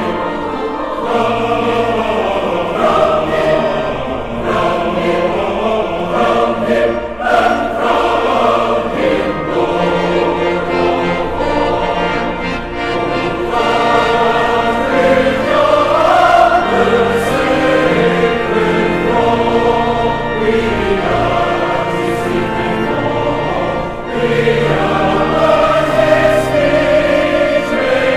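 Music: a choir singing.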